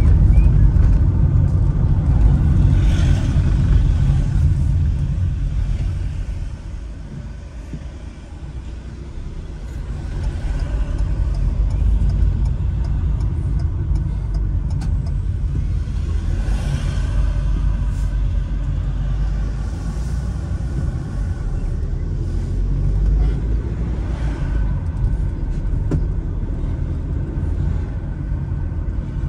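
Low, steady rumble of a road vehicle on the move. It grows quieter for a couple of seconds about seven seconds in, then builds up again.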